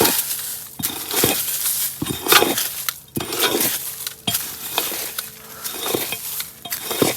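Repeated scraping and crunching strokes with light metallic clinks, roughly one or two a second, uneven in loudness.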